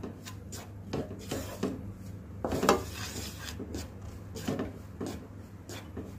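Silicone spatula scraping and stirring flour around a metal pan, irregular scrapes and light knocks against the pan, the loudest about two and a half seconds in. The flour is being roasted in ghee.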